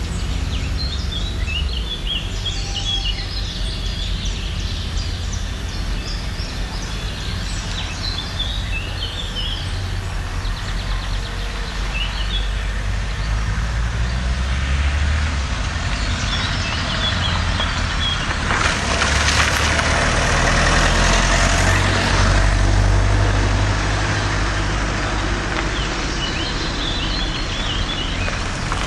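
Steady low vehicle-engine rumble with songbirds chirping over it, and a louder rush of noise for about four seconds roughly two-thirds of the way through.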